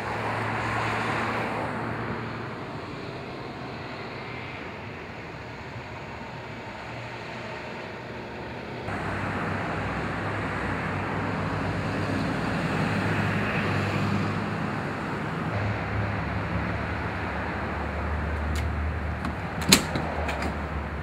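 Outdoor street ambience with car traffic passing, louder in the first couple of seconds, then a steady background rumble and hum. One sharp click comes near the end.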